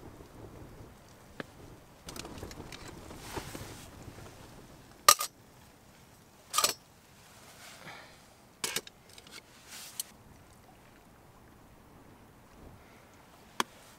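Trangia camping-stove cookware being handled: a utensil stirring and scraping in the pot and the pots knocking together, giving several sharp metal clinks, the loudest about five seconds in, with some rustling before them.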